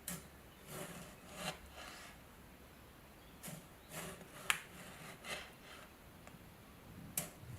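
Scattered short scraping strokes of a tool on a hard surface, a second or so apart, with one sharp click about four and a half seconds in.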